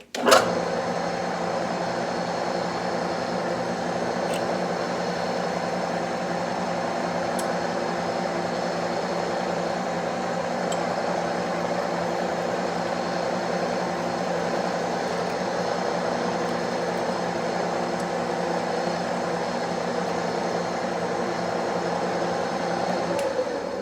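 Metal lathe switched on and running at a steady speed while drilling a small pilot hole in a metal part with a bit in the chuck. It cuts in suddenly at the start and winds down near the end as it is switched off.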